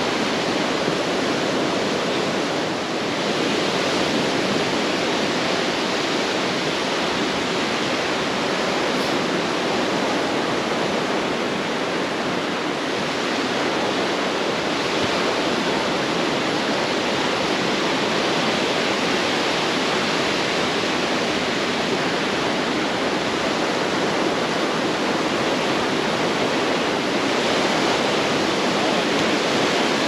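Ocean surf washing onto a sandy beach, a steady rushing noise with no clear breaks between waves.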